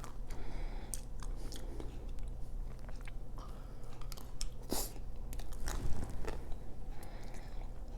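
Close-miked mouth sounds of biting and chewing a chocolate-coated ice cream bar, the chocolate shell crunching in scattered short crackles. A steady low hum runs underneath.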